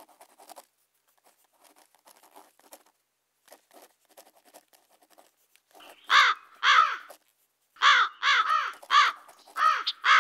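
Crows cawing, about seven caws in two groups starting about six seconds in, after faint scattered scratching and clicking.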